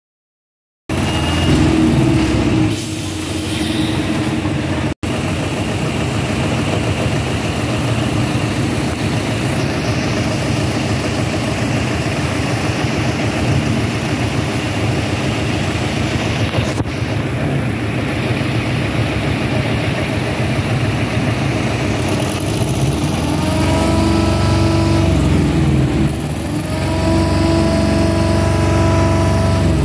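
Diesel engine of a heavy prime mover truck hauling a low-loader trailer, running loudly and steadily. Near the end its pitch rises several times as the truck pulls away and accelerates.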